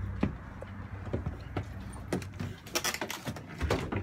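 Knocks, bumps and clattering handling noise from someone climbing aboard a sailboat and down through the cabin hatch, busiest about three seconds in. A steady low rumble underneath stops near the end as he gets below deck.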